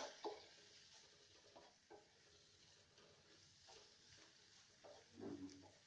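Faint scrapes of a spoon stirring dry coconut powder through fried onions and tomatoes in a pan: a few soft, scattered strokes, with a slightly louder one about five seconds in.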